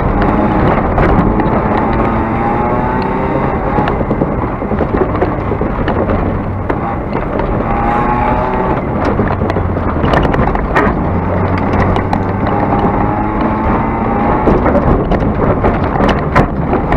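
A car engine under hard acceleration on a dirt course. Its pitch climbs several times as it revs up and falls back, over a constant rumble of tyres and wind, with scattered sharp knocks from the car bouncing over the rough ground.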